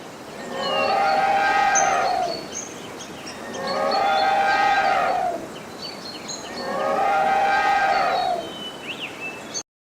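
Elephant trumpeting: three long calls about a second apart, each falling in pitch at its end, with faint birds chirping between them.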